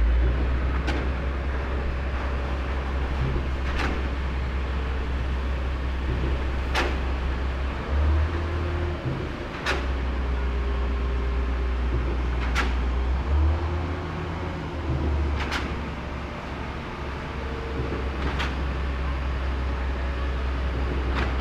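Steady low engine rumble with brief swells a couple of times, and a faint click about every three seconds.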